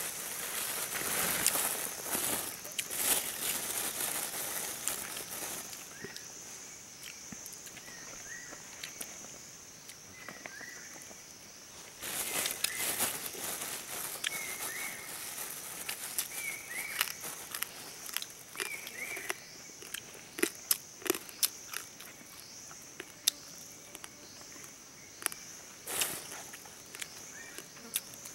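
A man eating roasted meat close to the microphone: rustling, crunching and sharp clicks of chewing and handling, in bouts, the clicks thickest in the second half. A steady high insect drone runs underneath, with a few faint short chirps.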